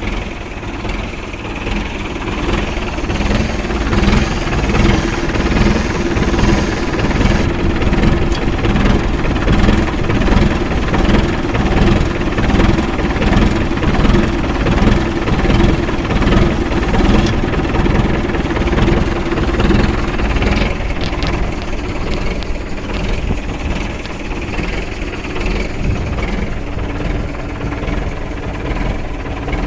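Mahindra 595 DI tractor's 50 hp diesel engine running steadily, with a rhythmic pulsing of about one swell a second. It grows louder about four seconds in.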